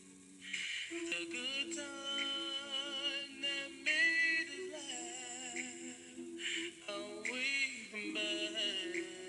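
Background song: a voice singing a slow melody with long held notes over sustained accompaniment, coming in about half a second in.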